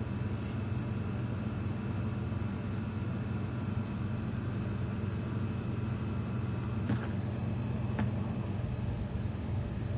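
Steady low electrical or machine hum with a few faint steady tones, and two faint clicks about seven and eight seconds in.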